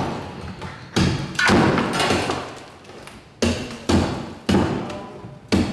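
A heavy cleaver chopping a block of ice on a wooden floor: about half a dozen hard strikes, each followed by the crackle of ice breaking apart. The ice is being broken into pieces to pack around the sorbet canister in its wooden barrel.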